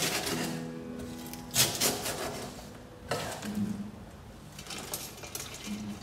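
Four sharp knocks on a wooden cutting board, as chopped lemongrass and ginger are worked on and gathered up, over quiet background music.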